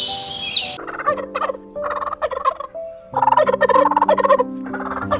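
Domestic turkey tom gobbling in four bursts, starting about a second in, the loudest one in the middle, over background music with steady held notes.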